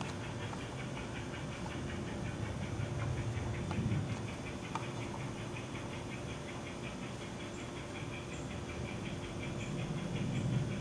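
Piko 0-6-0 Dockside model steam locomotive's Mylocosound onboard sound unit chuffing at a rapid, even beat as the train runs. A low rumble swells about four seconds in and again near the end.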